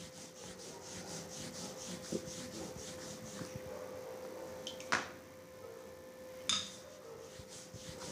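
A wooden rolling pin rolled quickly back and forth over thin, floured paratha dough on a board: a quiet, even, scratchy rubbing for the first few seconds. Two sharp knocks follow, about five seconds in and again a second and a half later.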